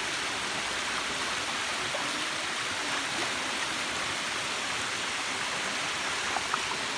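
Water running steadily from a bamboo spout and splashing onto a stone slab and a skull being rinsed under it. There are two faint brief clicks near the end.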